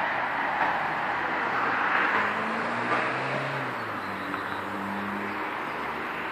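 Distant road traffic: a steady rushing noise that swells and fades, with a faint engine hum between about two and five and a half seconds in.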